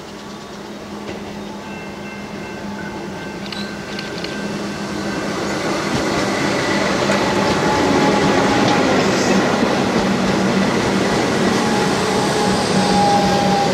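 Comeng electric suburban train approaching and running past close by, with wheels rumbling and clattering on the rails and a steady hum. It grows louder over the first half, then holds steady as the carriages go by.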